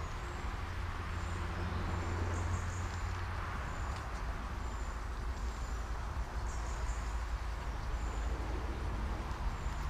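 Riverbank outdoor ambience: a steady low rumble under a soft background hiss, with a short high chirp repeating about once a second.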